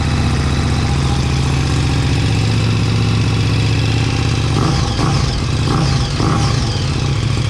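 KTM 1290 Super Duke R's V-twin engine idling steadily just after starting. It is a test run with the dash screen unplugged, and it runs fine.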